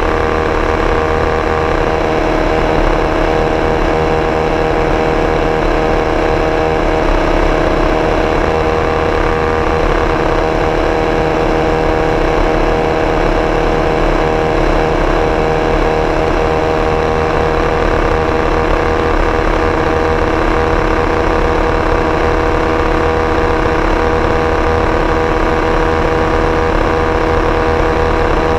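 Two-seater Indy car's engine running flat out at steady high revs at racing speed, heard onboard from the open cockpit. Its pitch holds almost unchanged throughout, with no gear changes or lifts.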